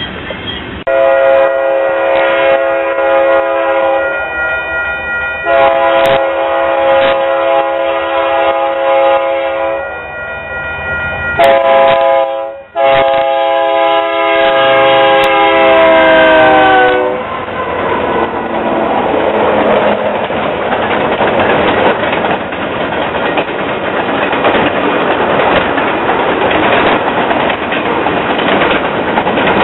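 BNSF diesel freight locomotive's multi-note air horn sounding the grade-crossing pattern, long, long, short, long. The pitch drops at the end of the last blast as the locomotive passes. Then the freight cars roll by in a steady rumble with the clickety-clack of wheels over rail joints.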